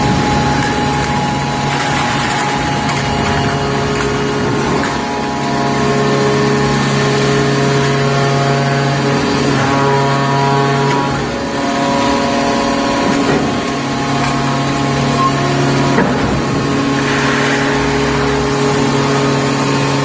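Hydraulic power unit of an automatic aluminium-can baler running: a steady electric motor and pump hum with a whine above it, the pitch and loudness shifting slightly about eleven seconds in as the load changes.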